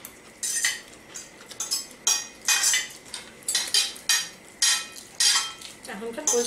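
Forks scraping and clinking on china plates as people eat noodles, in an irregular string of short scrapes.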